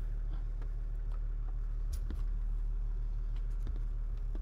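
Four-wheel-drive vehicle heard from inside its cab: a steady low engine drone with scattered small rattles and clicks from the cab.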